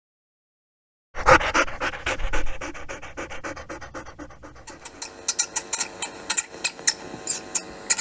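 A Pomeranian panting fast and evenly, starting about a second in and loudest at first. About halfway through, a run of sharp clicks joins in.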